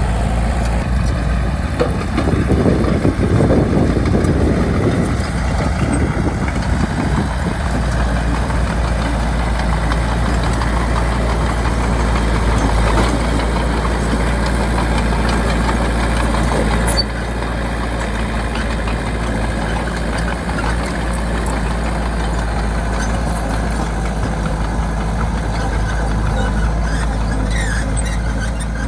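Bulldozer's diesel engine running steadily under load, with a louder, busier stretch a couple of seconds in and a drop in level about 17 seconds in.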